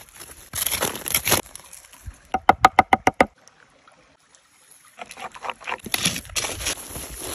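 Campfire cooking sounds: crinkling and crackling around foil parcels in embers, then a quick run of about eight pitched glugs. After a short quiet, crunching and scraping as a stick is worked through the embers and foil.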